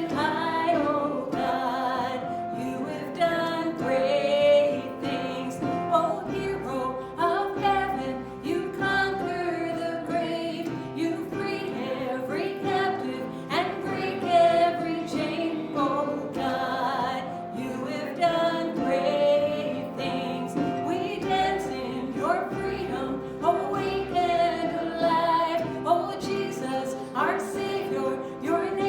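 Church worship music: voices, a woman's voice among them, singing a praise song over instrumental accompaniment.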